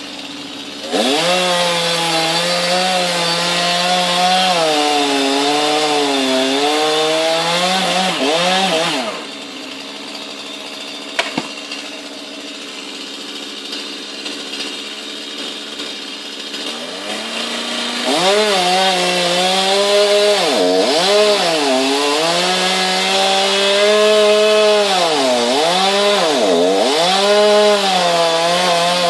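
Chainsaw cutting a tree trunk at full throttle in two long runs, its engine pitch dipping and rising as the chain bites into the wood. Between the runs it drops back to a much lower level for several seconds.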